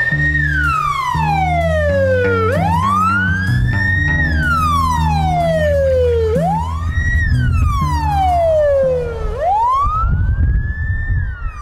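Police car siren wailing, its pitch rising quickly and falling slowly, about one cycle every three seconds, over low background music.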